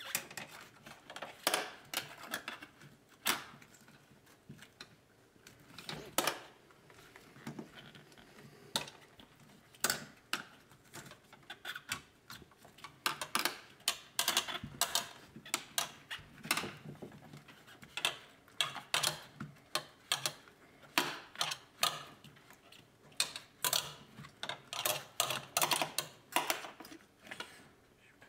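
Irregular clicks, taps and rustles of wiring being handled by hand and pulled through a rubber wiring boot in a truck door jamb.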